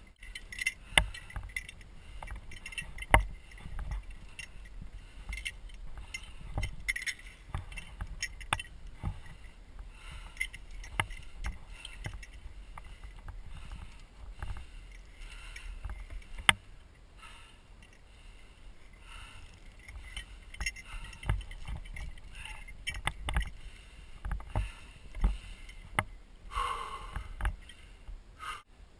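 Irregular knocks, scrapes and rustling of a climber moving over granite rock, picked up close by a body-mounted GoPro, with scattered sharp clicks and low thumps.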